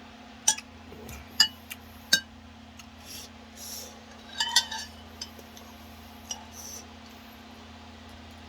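Eating utensils clinking against a bowl: sharp, ringing clinks about half a second, a second and a half and two seconds in, then a cluster of clinks around four and a half seconds, with a few fainter ticks after.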